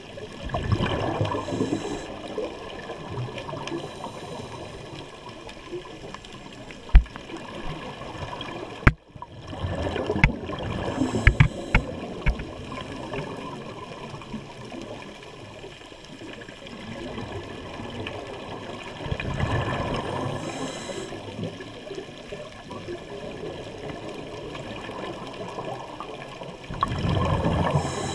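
Scuba diver breathing through a regulator underwater: bursts of exhaled bubbles about every eight to nine seconds, four in all, with a few sharp clicks between them around the middle.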